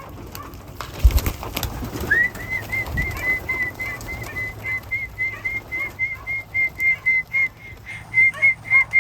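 A thump and brief clatter about a second in, then a long run of short, evenly repeated whistled pips at one steady high pitch, about three or four a second: a pigeon keeper's call to bring his birds in to the loft.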